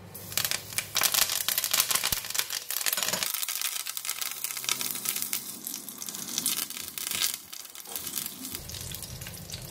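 Fresh curry leaves frying in hot oil in a ceramic pan, crackling and spitting hard, the crackle thinning out a little near the end.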